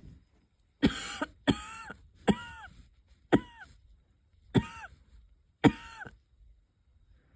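A person coughing lightly six times, about a second apart. Each cough has a short wheezy, pitched tail that falls away. The coughs sound like irritated lungs, which the uploader puts down to either a starting cold or flaring asthma.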